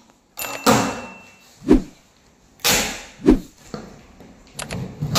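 A thin metal blade slitting the packing tape along the seam of a cardboard carton, in several separate short cutting strokes, some with a sharp start.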